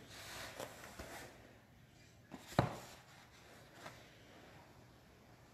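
Faint rustling of body movement on an exercise mat, with a few light knocks and one sharper thump about two and a half seconds in, as a foam roller is set down on the mat and positioned.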